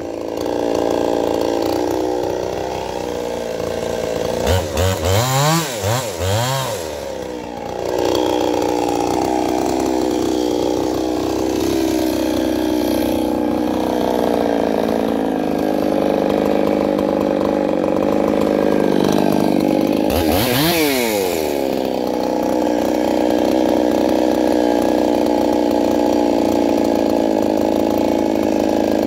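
Two-stroke Stihl-clone chainsaw idling steadily, not cutting, with three quick throttle blips about five seconds in and one more rev up and back down about two-thirds of the way through.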